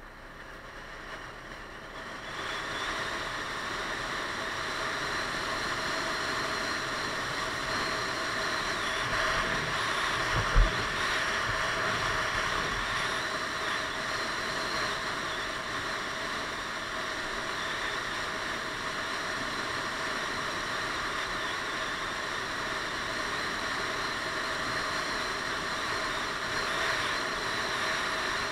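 Piaggio Beverly 500 scooter riding along a wet road, heard from a helmet-mounted camera as a steady rush of wind and tyre noise with the engine underneath. It swells over the first couple of seconds as the scooter picks up speed, then holds steady, with a single short thump about ten seconds in.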